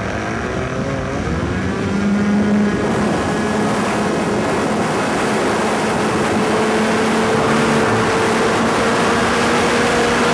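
Fuel-burning engine of a radio-controlled PC-9 scale model plane at high power through takeoff and climb-out, heard from onboard with a heavy rush of air. The engine note rises a little over the first couple of seconds, then holds steady.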